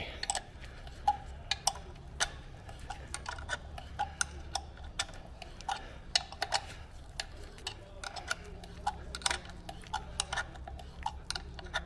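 Thread tap being wound by hand into the oil-pan drain-plug hole, cutting a new thread for a helicoil. The tap and its wrench give a run of irregular light clicks and ticks, a few a second, over a steady low hum.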